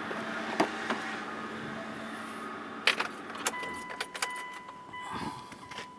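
Mitsubishi Pajero engine running, then switched off with the ignition key about three and a half seconds in: keys jangle in a run of clicks as the hum stops, and a steady high electronic tone begins.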